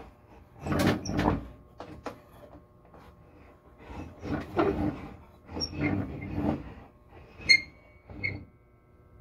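Table saw blade-height mechanism being cranked in short bursts, a grinding rattle, as the blade is lowered to groove depth. Two sharp metallic clinks with a short ring come near the end.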